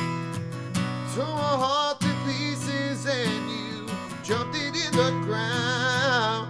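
Country song's instrumental break: strummed acoustic guitar under a lead melody that bends and wavers, played in short phrases.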